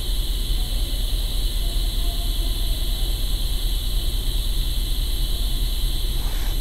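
Steady background drone: a constant low hum with a steady high-pitched hiss and ringing over it, unchanging throughout.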